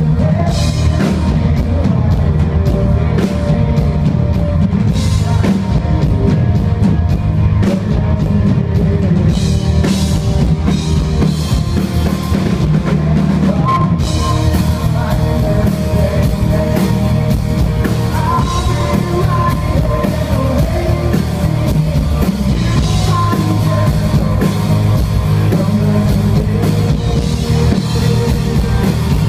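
Live rock band playing: a drum kit and electric guitar going steadily throughout.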